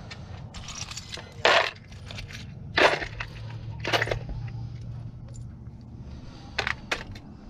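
Small parts rattling and clacking in a plastic compartment organizer box as a hand rummages through it. There are loud knocks about one and a half, three and four seconds in, and two quick ones near the end.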